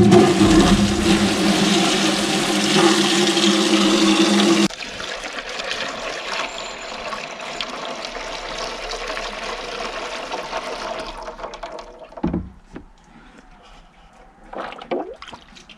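Water from a tap gushing into a plastic jug, a loud rush with a steady low tone, which cuts off abruptly a little over four seconds in. Then a quieter, even trickle of water poured from the jug through a funnel into the filler of a UTB 445 tractor's cooling system, topping it up, followed by a single knock near the end.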